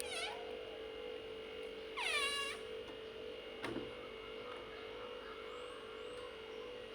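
A door's squeaky hinges creak as it swings: a short squeak at the start, then a longer squeal falling in pitch about two seconds in. A single knock follows at about three and a half seconds, as the door shuts against its frame. A faint steady hum runs underneath.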